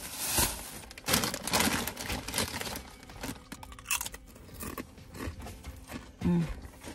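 Bag of Doritos crinkling loudly as it is pulled open and rummaged in, followed by quieter scattered crackles of the bag and crunching of tortilla chips being eaten.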